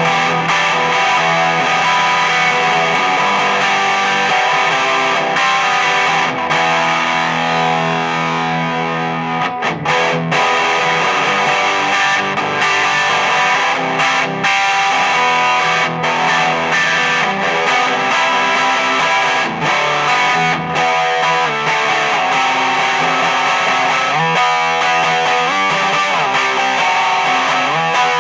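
Electric guitar played through a Distortion+ style overdrive pedal built with three germanium clipping diodes, giving a continuous run of distorted notes and chords with a slightly rounded treble.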